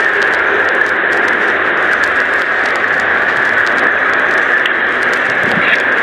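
Steady, loud hiss of static-like background noise picked up by a doorbell camera's microphone.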